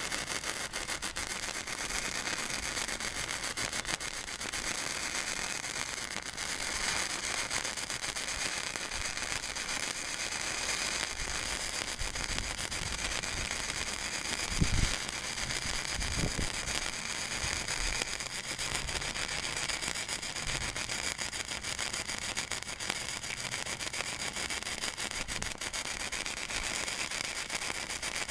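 Flux-core arc welding with a Blue Demon 140MSI: a continuous crackling, sizzling arc while one long bead is run on 1/4-inch steel plate, with two brief low thumps about halfway through. The voltage is at its maximum, which the welder judges way too much, with the arc burning back toward the contact tip.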